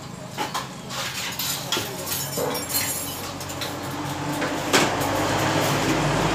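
Clinks and knocks of metal trays and utensils being handled, then an engine hum growing louder through the second half, with one sharp knock midway.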